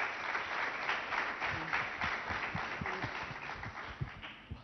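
Theatre audience applauding, a dense patter of many hands clapping that dies away near the end.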